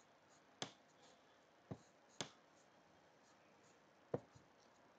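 Four short sharp clicks, irregularly spaced, against near silence: a stylus tapping on a pen tablet while handwriting.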